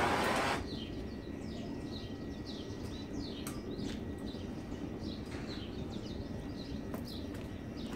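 Small birds chirping repeatedly over the low, steady rumble of a just-lit metal-melting furnace's burner flame. A loud rushing noise in the first half-second cuts off suddenly.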